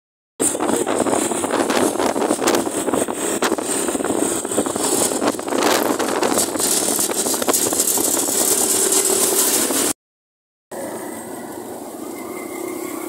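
Steady road and wind noise with engine sound from riding along a road in traffic. It cuts out abruptly for a moment shortly before the end, then resumes quieter.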